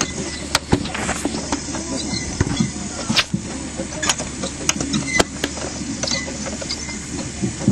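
Miniature live-steam locomotive in steam: a steady hiss and low hum with irregular sharp clicks and knocks throughout.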